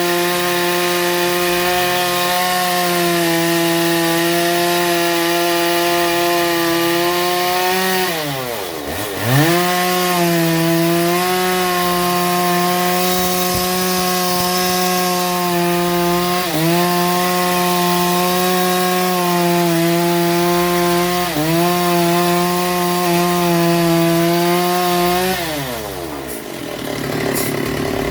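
Sawmill saw running at a steady pitch. About eight seconds in, the pitch sags sharply and climbs back; it dips briefly twice more, then winds down near the end.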